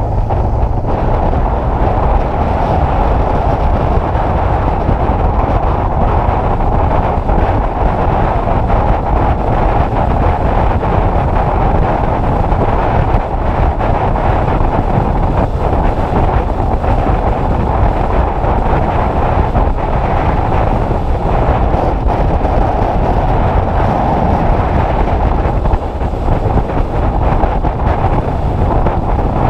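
Heavy wind noise on the microphone of a motorcycle camera at riding speed: a loud, steady rush.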